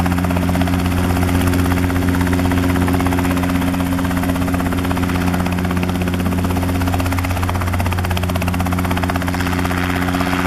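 Small private helicopter running close by: a steady low engine drone with rapid rotor chop. The engine is not sounding right; onlookers take it for not getting its power.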